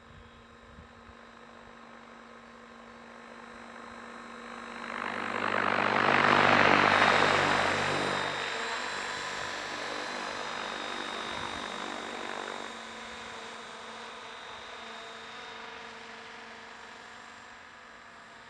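Mikado Logo 550SX electric radio-controlled helicopter flying past: the rotor and motor whine grows from faint, is loudest about six to seven seconds in, then fades away.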